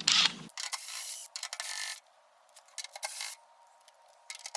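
Steel wire hanger scraping and picking packed dirt out of a recess on a push mower's engine, in several short scratchy bursts with pauses between.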